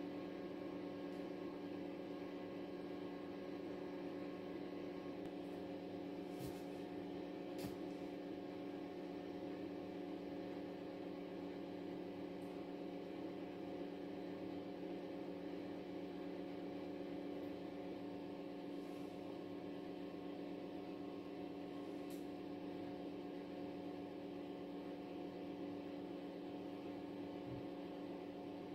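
Electric oven running with a steady, even hum, with a few faint clicks.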